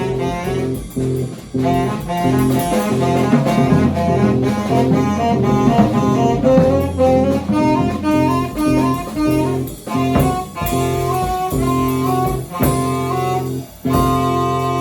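Improvised jazz-rock band playing: tenor saxophone runs over bass and drum kit. About 14 seconds in, the band cuts off briefly and then holds a sustained chord.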